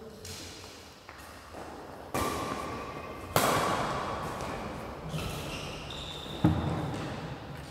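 Badminton rackets striking a shuttlecock in a rally: three sharp hits, the middle one the loudest, each ringing on in the echo of the hall. A short high squeak comes between the second and third hits.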